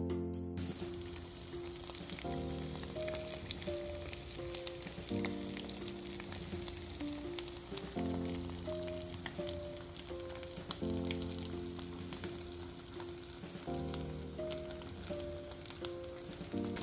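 Seasoned tofu cubes sizzling in hot olive oil in a wok, with a dense spatter of fine pops; the sizzle starts under a second in, when the tofu goes into the oil. Soft background music plays underneath.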